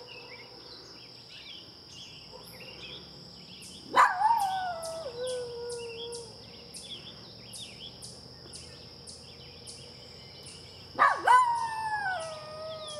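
Small white-and-brown terrier howling twice, about four seconds in and again near the end: each howl starts with a sharp rise and then slides slowly down in pitch over a couple of seconds.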